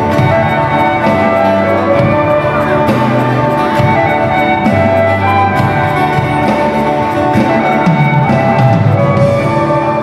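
A live band playing a Polish Christmas carol (kolęda): held melody notes over a low bass line, with some notes sliding in pitch.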